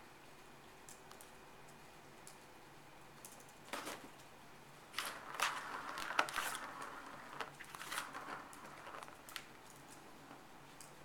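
A cat batting a plastic ball around a circular plastic track toy: a couple of knocks about four seconds in, then a run of rattling, rolling and clicking from about five to nine seconds, tailing off into scattered clicks.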